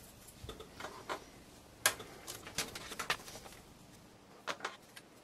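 Scattered light clicks and taps of hard plastic tricopter frame parts, the arms and legs, being handled and fitted together on a cutting mat. The loudest click comes a little under two seconds in.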